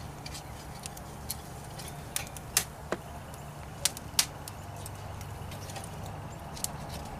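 Cherry-wood fire crackling in a grill firebox: irregular sharp pops, about seven over several seconds, over a steady low hum.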